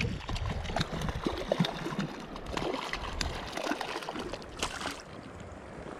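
River water running, with scattered small splashes and clicks, and some wind rumble on the microphone that eases off about halfway through.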